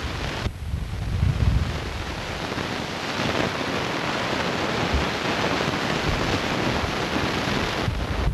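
Wind blowing across a camcorder microphone on an exposed mountaintop: a steady rushing hiss with low rumbling buffets. The rush swells about half a second in and eases near the end.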